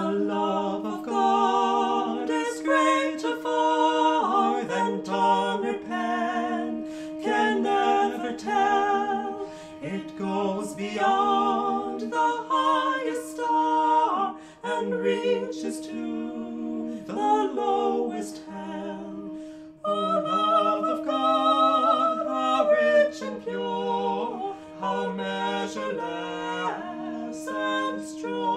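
Background music: voices singing a cappella, the melody moving note by note over a steady held low note.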